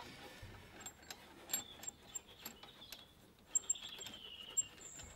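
Faint handling of a small metal hose adapter fitting while thread sealant is put on it by hand: light rustling with a few sharp metallic clicks, the clearest two near the end, and some faint high chirps.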